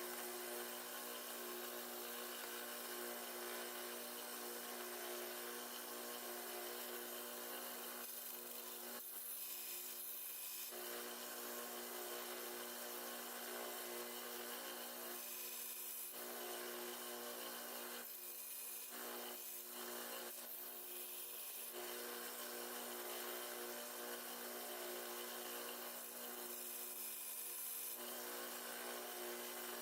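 Faint power sanding: a motor hums steadily while a handle scale is worked against the abrasive, the rubbing noise dropping out briefly several times.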